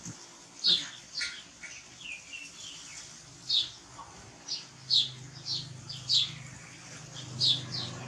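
Small birds chirping: short, high, falling chirps at irregular intervals of roughly a second, with a low hum coming in about halfway through.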